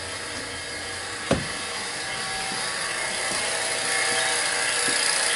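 Refrigeration vacuum pump running steadily, a hissing drone with a faint hum of motor tones, slowly growing louder as it evacuates the refrigerator's sealed system. A single sharp click comes about a second in.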